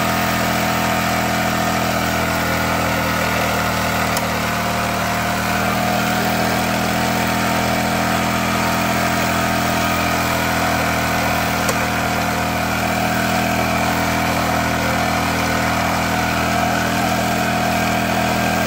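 Small engine of a portable abrasive-disc rail-cutting saw running at a steady speed. The cutting wheel is not yet in the rail.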